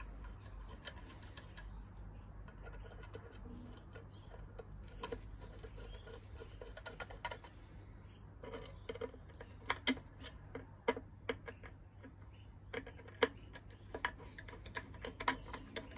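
Light, irregular metal clicks and taps of a screwdriver turning down the screws of a sewing machine's top cover, coming thicker from about halfway, over a faint low hum.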